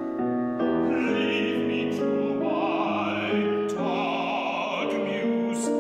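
A male opera singer singing a sustained line with vibrato over piano accompaniment.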